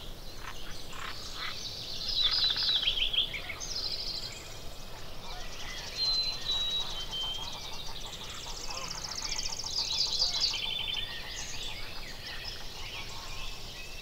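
Several songbirds calling and singing over one another. A clear whistled phrase of three notes steps down in pitch about six seconds in, and a fast trill comes around nine to ten seconds, over a steady soft background hiss.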